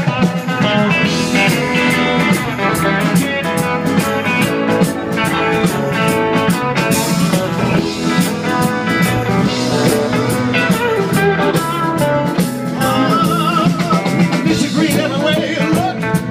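Live blues-rock band playing an instrumental break, with electric guitar over a steady drum beat.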